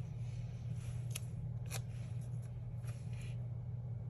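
Faint rustling of paper sticker sheets with a few light taps, over a steady low hum.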